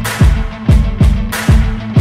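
Background music with a steady, driving beat: a punchy kick drum with snare and cymbal hits over a sustained bass line, in a funk or electronic style.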